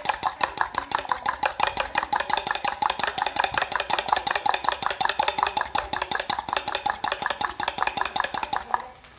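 Fork beating eggs in a bowl, whisking them fluffy: a fast, even clatter of about eight strokes a second that stops shortly before the end.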